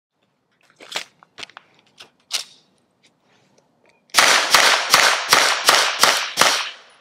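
Suppressed Lone Wolf Dusk 19 9mm pistol fired seven times in quick succession, about three shots a second. Before the shots there are a few fainter sharp clicks.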